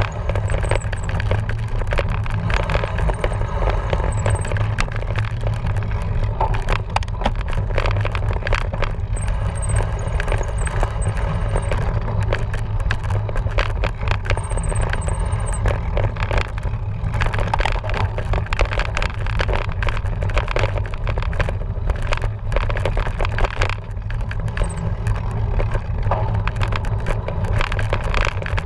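Cyclocross bike rattling and clattering over rough ground, with constant small knocks and scrapes over a steady low rumble of wind buffeting the microphone.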